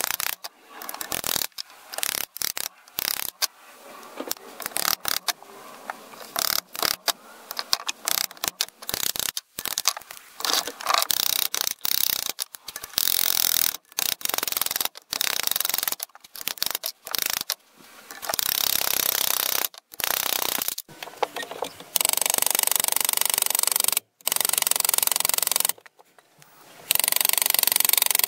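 Metalwork on an old folding machete at a bench vise: clicks, knocks and handling of steel, then from about halfway stretches of steady scraping noise, each a second or two long and cut off abruptly.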